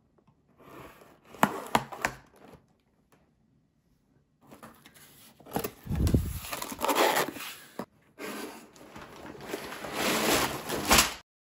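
A cardboard toy box being opened: a knife slicing through the tape seals with a few sharp clicks, then the cardboard flap being pulled open and plastic bags of Lego pieces sliding out with a crinkling rustle. The sound cuts off abruptly near the end.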